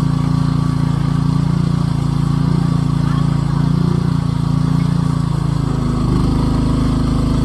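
A small engine running steadily, its note shifting slightly about six seconds in.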